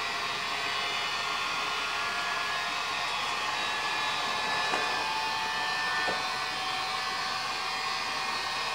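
Electric air-mattress inflator running steadily, its small fan motor blowing air into a garbage-bag hovercraft to inflate it.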